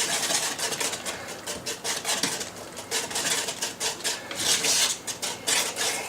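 A utensil scraping and stirring around the bottom of a pot of thick soup in quick, repeated strokes, stirred constantly to keep it from sticking to the bottom as it comes to a boil.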